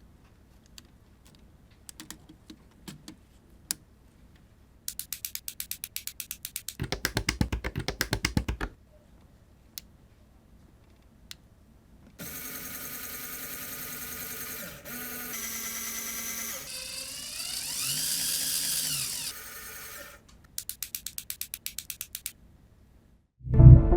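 A small mechanism working: scattered clicks, then runs of rapid even ratchet-like ticking, and a steady whir of a small motor for several seconds that shifts pitch and rises and falls, then more rapid ticking.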